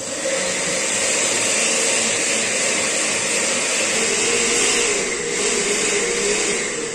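Countertop blender running at speed, liquefying dried chiles (chile negro and ancho) in the broth they were cooked in. It starts abruptly and runs steadily, with a steady hum note coming in about four seconds in.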